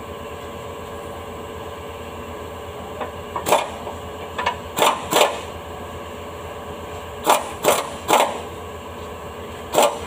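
Hand wrench clinking against bolts and metal on a vehicle's underside: a handful of sharp, irregular clinks, some in quick pairs, over a steady background hum.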